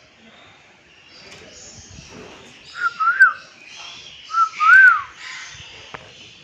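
Two loud whistled calls, each a short note followed by a rising-then-falling glide, over a background of bird chatter.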